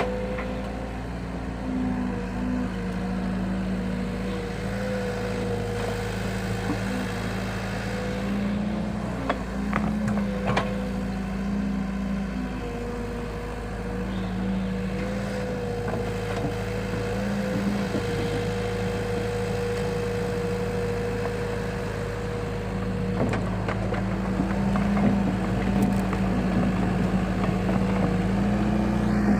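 Excavator's diesel engine running steadily, its pitch shifting slightly now and then, with a few light clicks and knocks.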